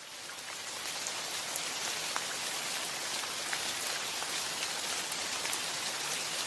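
Steady rain falling, an even hiss with scattered drop ticks, fading in over the first second.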